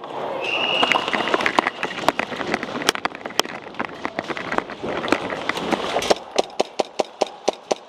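Airsoft guns firing: many sharp pops and clicks of uneven strength, mixed with quick footsteps, ending in a fast even string of about five shots a second over the last two seconds.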